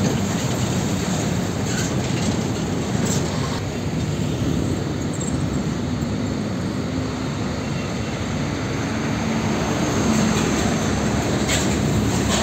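Heavy diesel trucks hauling shipping containers drive slowly past: a steady low engine drone with tyre and road noise, a little louder near the end as a truck comes close.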